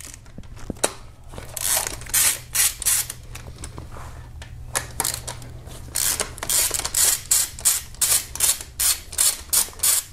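Hand ratchet with a 12 mm socket clicking in short repeated bursts as it backs out the bolts holding the fuel rail to a 2.4 GDI engine. The bursts come scattered at first, then about two a second in the second half.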